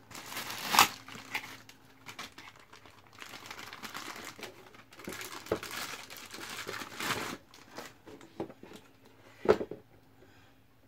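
Plastic bags crinkling and rustling in bursts as they are pulled off headphones, with two sharp clicks, one near the start and one near the end.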